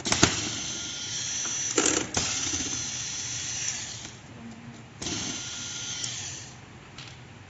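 Corded electric screwdriver whirring as it backs screws out of a robot vacuum's bottom cover. It runs for a few seconds, stops, then runs briefly again about five seconds in, with sharp clicks as it starts and stops.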